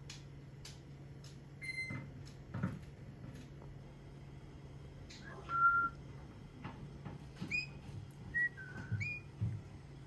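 A lorikeet giving short, high whistled notes, about six of them and mostly in the second half, a few sliding upward. A steady low hum runs underneath.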